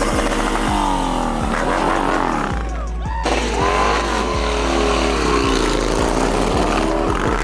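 Music with a heavy, steady beat, mixed with a vehicle engine revving up and down.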